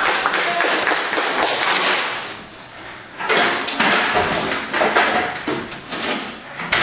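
Crowd noise in a large hall, with scattered thuds and slaps. It dies down briefly about halfway through, then swells again.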